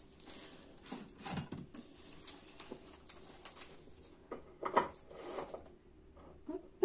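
Objects being picked up, moved and set down on a desk and wall shelf: scattered light knocks, clatters and rubbing, with a sharper knock near the end.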